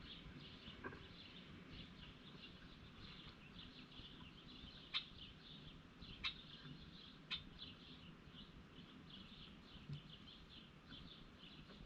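Faint outdoor bird chirping, many short high notes running on continuously, with three sharp clicks about halfway through.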